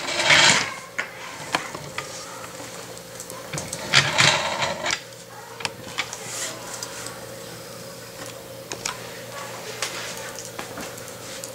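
Small clicks and taps of laptop parts and screws being handled during reassembly, with two short scraping noises, one at the start and one about four seconds in, over a faint steady hum.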